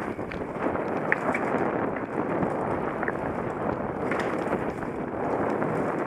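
Mountain bike ridden fast down a dirt singletrack: a steady rush of tyre noise and wind buffeting the microphone, with scattered small clicks and rattles from the bike over the rough trail.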